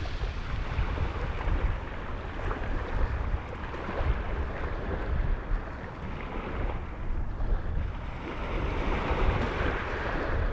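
Small sea waves washing in and draining back over a pebble beach, swelling near the start and again near the end, with wind buffeting the microphone as a low rumble.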